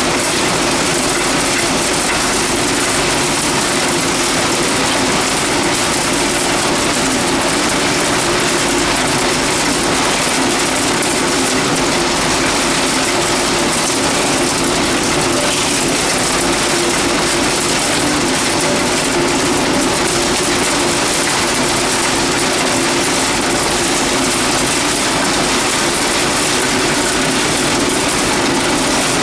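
Sawdust pellet production line running: a vertical pellet mill and belt conveyor make a loud, steady mechanical din with a constant hum underneath.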